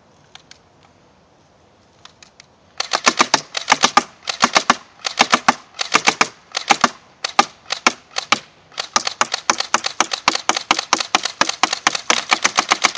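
TAC R71 airsoft gun firing on full auto: several short bursts of rapid sharp cracks starting about three seconds in, then one long continuous string of shots from about nine seconds in.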